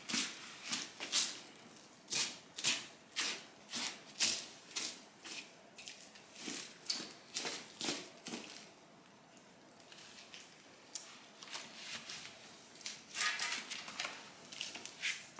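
An irregular series of short, sharp knocks and clicks, several a second, easing off for a few seconds past the middle and picking up again near the end.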